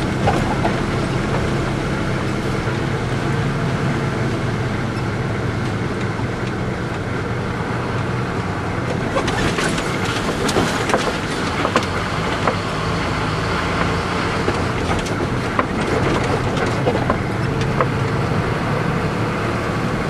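Engine of a six-wheel propane bobtail tanker truck running steadily at low speed, heard inside the cab. Scattered clicks and rattles join in from about halfway through.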